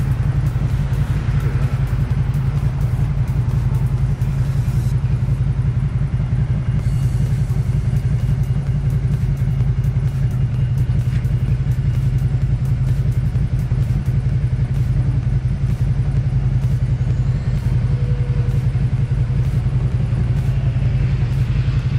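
Motorcycle engine idling steadily in neutral with the bike at a standstill, an even low rumble throughout.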